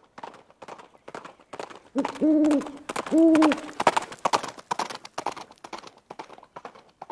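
Intro sound effect: a steady clopping of short knocks, about three a second, with two loud, held hooting calls about a second apart, around two and three seconds in.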